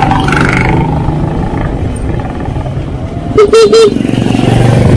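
Motorcycle tricycle engine running steadily while riding along a street. About three and a half seconds in, a horn gives three quick beeps.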